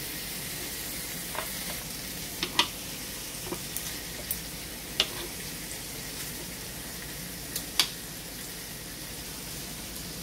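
Chicken breasts and lemon slices sizzling steadily on the hot plates of a George Foreman electric grill. Several sharp clicks of metal tongs against the grill come as the pieces are turned over.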